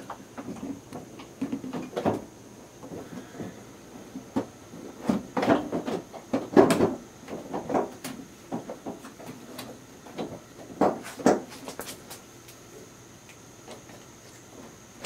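Irregular knocks, clicks and scrapes of a plastic aftermarket Spyder headlamp assembly being handled and pushed into its opening in the truck's front end, busiest about five to seven seconds in and again around eleven seconds.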